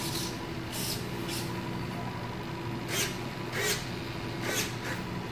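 Steady low electric hum from a powered-up RC plane's servos and electronics while the tail control surfaces are worked from the transmitter, broken by several short hissy clicks.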